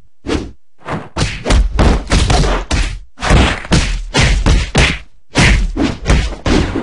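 Rapid barrage of punch and body-hit sound effects, heavy thuds landing several times a second with a few short pauses, for a long fighting combo.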